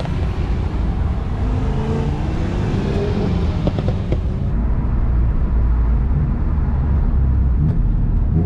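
Cars driving past, engines accelerating with rising pitch. About four and a half seconds in, the sound changes abruptly to a steady low engine and road drone heard inside a car's cabin.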